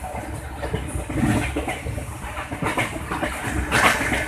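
Passenger train running: a steady low rumble with irregular clicks and knocks from the wheels and coaches, and a louder clatter near the end.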